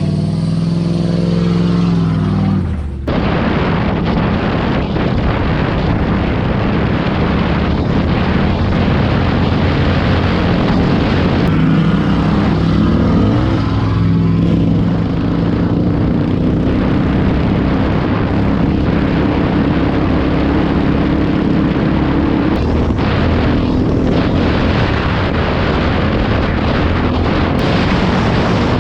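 Pickup truck engine running hard off-road, loud. It rises in pitch for the first few seconds, then changes suddenly about three seconds in to a rougher, noisier engine sound that keeps on.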